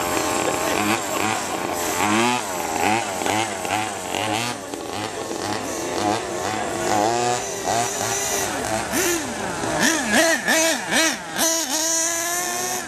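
Small two-stroke engines of radio-controlled trucks revving up and down as they drive. The pitch rises and falls again and again, with more than one engine heard at once.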